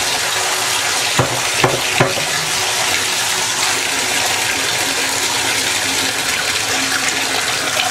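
Moen bathtub faucet running, a steady rush of water at full pressure, its anti-scald valve freshly cleaned of lime. Three short knocks sound a second or two in.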